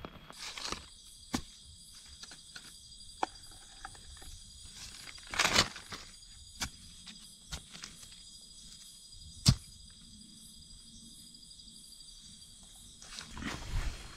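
Night insects, crickets or similar, chirring in a steady high-pitched chorus that stops near the end. Over it come a few sharp knocks and one short scraping rustle about five seconds in, as a machete and a stick work the forest floor.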